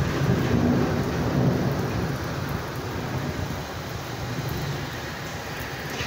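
Heavy rain falling as a steady hiss. A low rumble in the first two seconds fades away.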